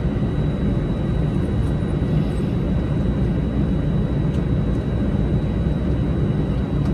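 Cabin noise inside an Airbus A320 pulling into the gate: a steady low rumble from the engines at idle, with a faint steady high whine.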